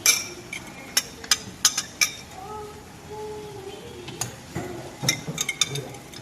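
A metal utensil clinking sharply against cookware several times, in a cluster at the start and again near the end.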